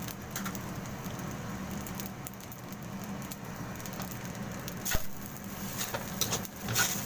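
Fried rice and a freshly cracked egg sizzling in a stainless steel wok with a steady hiss. About five seconds in, a metal spoon starts scraping and clinking against the wok as the rice is stirred.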